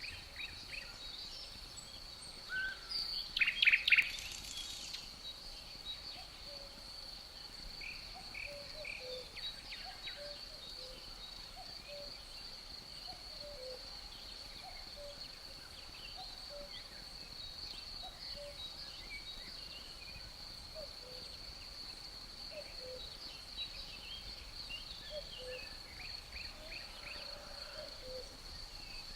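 Forest ambience: crickets give a steady high chirring throughout while birds call and sing, loudest in a quick run of notes a few seconds in. Faint low two-note cuckoo calls repeat in the background.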